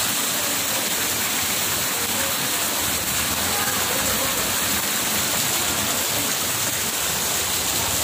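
Steady rush of water: floodwater flowing over a concrete floor, an even hiss that does not change.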